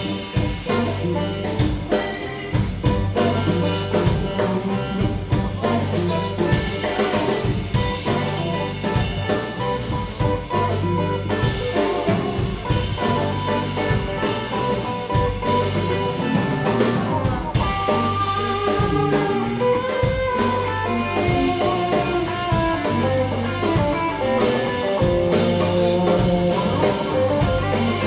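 Live blues band playing: electric guitars over drum kit and bass guitar.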